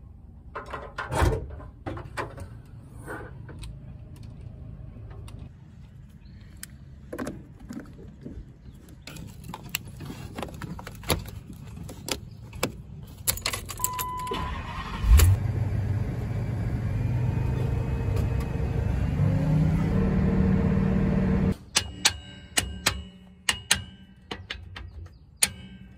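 Scattered clicks and knocks, then about fifteen seconds in an engine cranks and starts on a jump from a dead battery, runs and revs up for several seconds, and stops abruptly. Near the end comes a quick run of hammer blows on steel.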